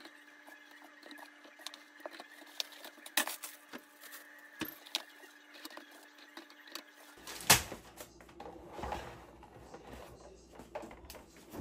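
Eggs being set one by one into a plastic egg bin lined with paper towel: light clicks and taps of shell on plastic and on other eggs, with cardboard egg cartons handled. One sharper knock comes about seven and a half seconds in.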